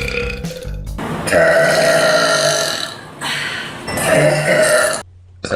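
A young woman burping: a string of long, drawn-out, pitched burps, the longest lasting nearly two seconds, with a short one near the end.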